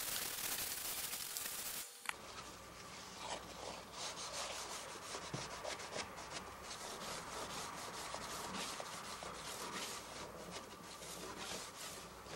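Paper towel in a gloved hand wiping along the metal rails of a sliding-door threshold, making many short, irregular rubbing and scraping strokes. The first two seconds are a louder steady hiss that cuts off abruptly.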